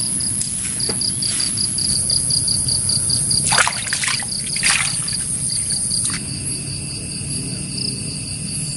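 Insects chirping in a steady, rapid, pulsing trill, over a low steady background noise, with a few short clicks about three and a half, five and six seconds in.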